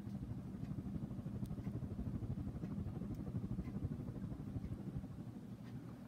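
Air from a running fan buffeting the microphone: a rapid, uneven low rumbling flutter.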